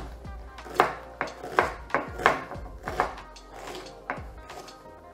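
Chef's knife chopping an onion on a wooden cutting board: about a dozen sharp knocks of the blade on the board, in an uneven rhythm of two to three a second. Background music plays underneath.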